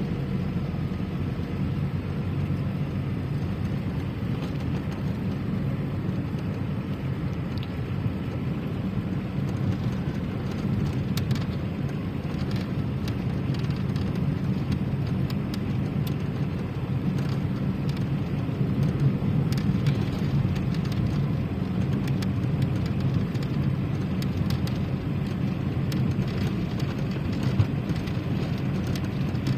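Steady low rumble with a faint hiss, like road noise from a moving vehicle.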